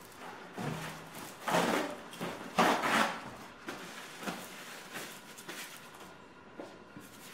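Kitchen handling sounds: two short, noisy rustles or scrapes about one and a half and two and a half seconds in, followed by a few light knocks.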